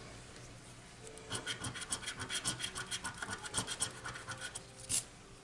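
Scratch-off coating on a lottery ticket being scratched away in quick, rapid strokes, several a second, starting about a second in and stopping about four and a half seconds in, with one last stroke just after.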